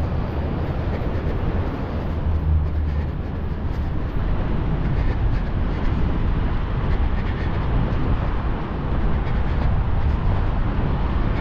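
Steady outdoor background noise: a low rumble with no distinct events.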